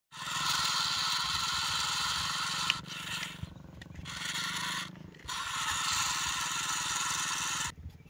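Small electric gear motors of a remote-control toy front loader whirring as it drives and works its arm. It runs in three bursts with brief stops in between, and cuts off just before the end.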